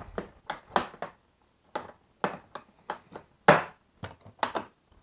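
Irregular sharp clicks and knocks, about a dozen, of Milwaukee Packout latches and hard plastic boxes being handled and snapped shut, the loudest about three and a half seconds in.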